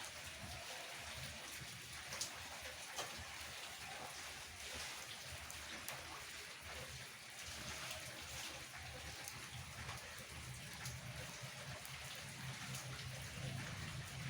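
Steady rain falling, with many single drops ticking sharply among the even patter.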